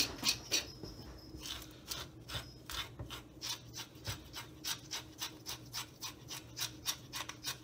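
A toothed metal fish scaler scraping the scales off a silver pomfret, in quick repeated rasping strokes, about three or four a second.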